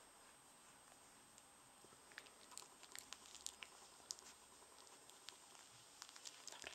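Faint, irregular small clicks and smacks starting about two seconds in, from a three-week-old rough collie puppy mouthing and nosing about.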